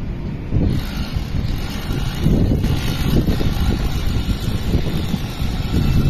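Wind buffeting the microphone in uneven gusts, with a fainter steady hiss joining about a second in.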